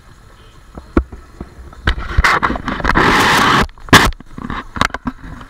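Camera handling noise: a few sharp knocks and a loud rubbing rush directly on the microphone while the camera is turned around in the hand.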